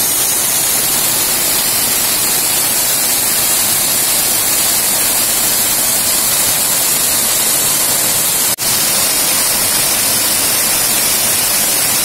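Waterfall pouring, a loud, steady rush of falling water heard up close. It cuts out for a moment about eight and a half seconds in.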